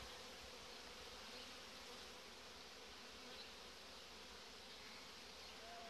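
Faint, steady buzzing of honeybees over an opened hive while a comb frame is lifted out. The beekeeper finds this colony a bit more aggressive than the others.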